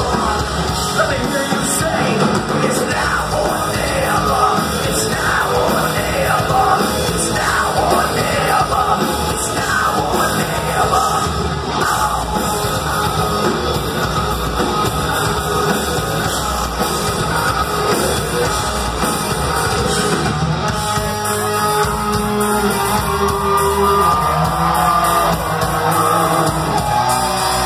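An industrial metal band playing live at full volume: electric guitars and drums with sung and yelled vocals. A clearer sustained melodic line comes forward in the last few seconds.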